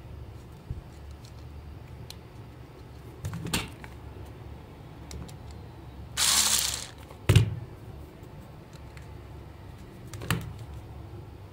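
Small clicks and knocks from handling a plastic toy remote controller shell and its circuit board, with a cordless electric screwdriver running for under a second about six seconds in, followed by one sharp knock.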